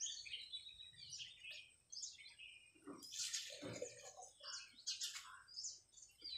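Faint birds chirping in short scattered calls, with a brief duller sound about three seconds in.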